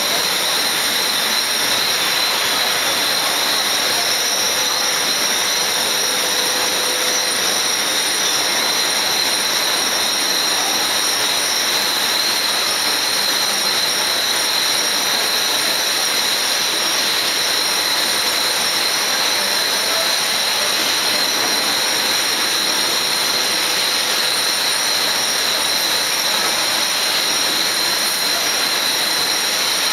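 Steady rushing noise of a billet continuous casting machine running, with a constant high whine over it.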